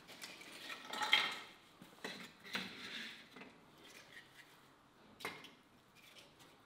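Dry split kindling sticks clattering and knocking against each other as they are handled and laid in a wood-fired oven, loudest about a second in, with one sharp knock near the end.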